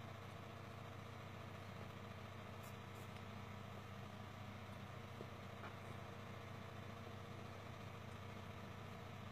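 Steady low background hum with a few faint ticks.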